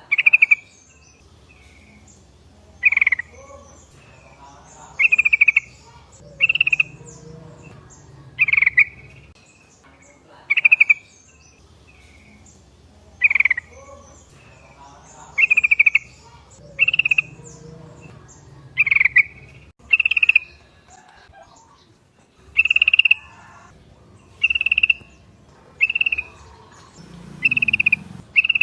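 Sooty-headed bulbuls calling: short, bright, chattering calls repeated every second or two, some in quick succession.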